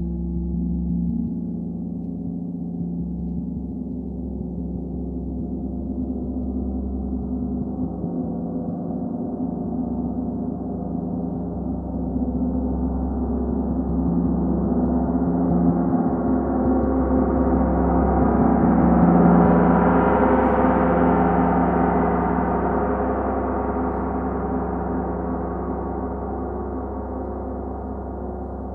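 36-inch Metatron gong played in a continuous soft roll with a fleece-headed Olli Hess moveline mallet on a flexible shaft. The sound swells slowly, its upper overtones blooming to a peak about two-thirds of the way through, then fades gradually.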